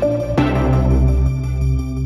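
Background music with sustained chords over a steady bass; the chord changes about half a second in.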